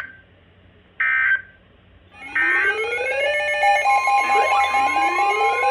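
Emergency Alert System data bursts, two short screeching tone bursts about a second apart, the end-of-message code closing a weather warning. From about two and a half seconds in, a loud electronic alert tone sounds, with repeated rising sweeps over a pulsing tone and a steady tone.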